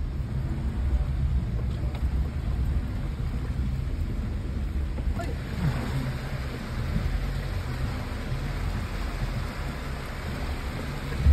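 Suzuki Jimny engine running under load as it crawls through a rocky creek, heard from inside the cab, with water splashing against the vehicle. The splashing grows louder about halfway through.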